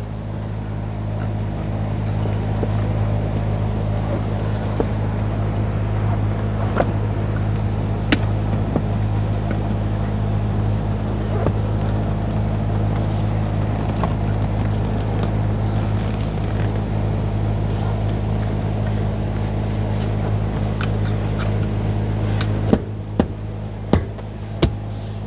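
Steady low hum throughout, with scattered light clicks and knocks as the leather rear seat cushion is handled and pressed back into place with its seat belt buckles fed through; a few sharper knocks near the end.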